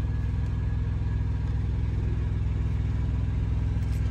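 Heavy-truck diesel engine idling steadily, a low even hum heard from inside the cab.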